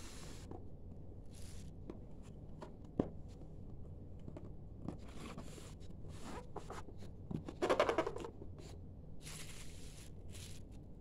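Cardboard boxes of glassware being handled and shifted by hand, rustling and scraping, with a sharp tap about three seconds in and a louder burst of rustling near eight seconds.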